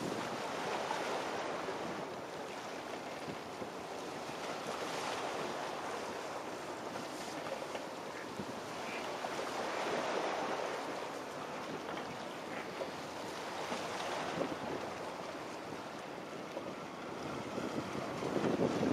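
Wind rushing over the microphone together with water washing. The sound swells and eases every few seconds and grows louder near the end. No engine tone stands out from the rush.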